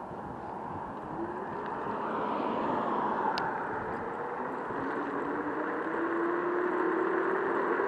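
Joyor S5 electric scooter's motor whining as the scooter speeds up, the tone rising slowly in pitch over a steady rush of wind and road noise.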